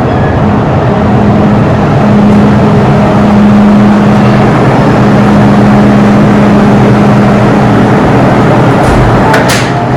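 MTR Island Line M-train running along the line: a loud, steady rumble with a constant low hum, and a few sharp clicks near the end.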